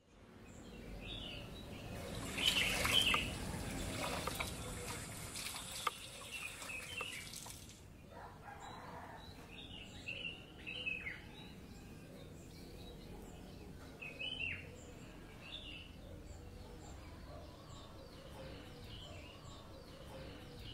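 Ambient birdsong: small birds chirping with short, falling whistled calls. During the first several seconds a steady rushing noise sits under them and then cuts off abruptly.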